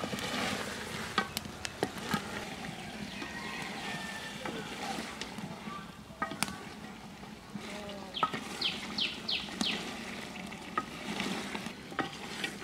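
Curry simmering in an aluminium pot over a wood-fired clay stove: a low steady hiss of cooking with scattered clicks and taps from a spatula against the pot. A few short high chirps come about eight to nine seconds in.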